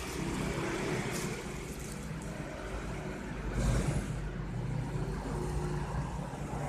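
A motor vehicle engine running, a steady low rumble, with plastic wrap and lettuce leaves rustling under hands, loudest about three and a half seconds in.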